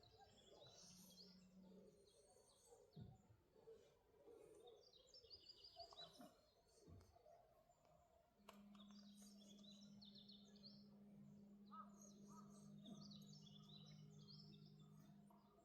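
Faint small birds chirping and twittering on and off, with a steady low hum that starts about halfway through and fades near the end.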